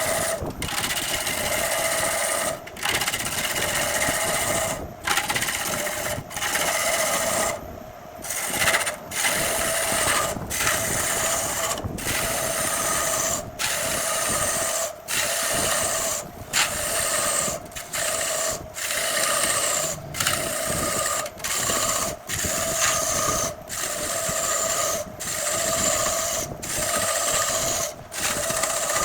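Wood lathe running with a tool cutting into spinning jackfruit wood: a steady motor hum under a hissing cut. The sound breaks off and resumes every one to two seconds.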